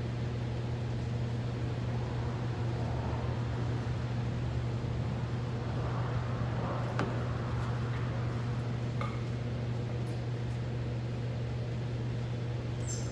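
A steady electric-machine hum at one constant low pitch, like a motor or fan running, with a few light clicks and taps around the middle.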